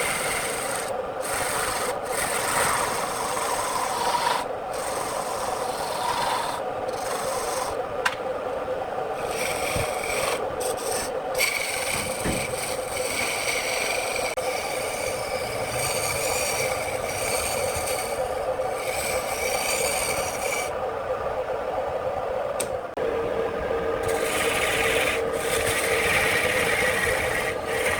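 Wood turning on a lathe with a tool held against it: a continuous rasping scrape of the spinning wood being worked, over a steady hum.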